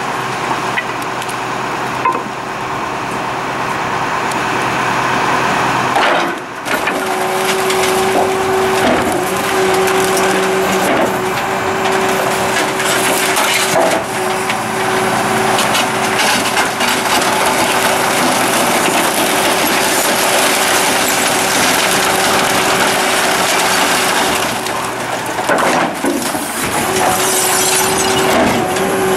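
Superior Pak rear-loader compactor on an Acco 6x4 garbage truck cycling its packer blade. A steady hydraulic whine runs over the engine, with dense cracking and splintering as wood and other hard waste are crushed. There is a short lull about six seconds in, after which the whine comes back.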